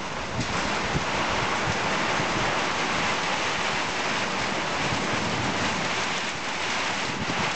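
Heavy downpour: rain falling steadily in an even hiss.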